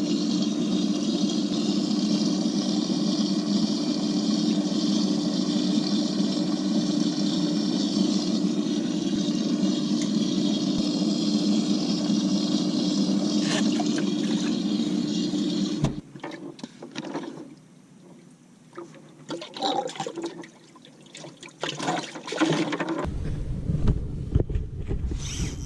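Steady rush of water with a constant low hum, typical of a bass boat's livewell pump pouring water into the well. It cuts off suddenly about two-thirds of the way through, leaving scattered light knocks and rattles.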